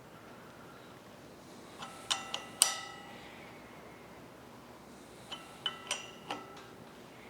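Sharp metallic clinks, each with a short ring, in two groups of about four: one about two seconds in and one about five and a half seconds in.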